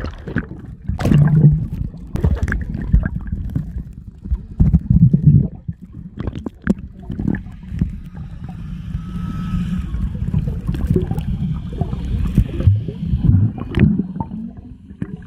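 Muffled water sound recorded underwater by a snorkeler's camera: a low rumble with bubbling gurgles and many short sharp knocks.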